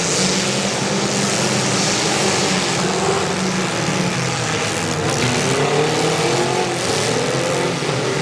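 Several small demolition-derby car engines running hard and revving, loaded as the cars shove against each other in the mud. Their pitch rises several times in the second half.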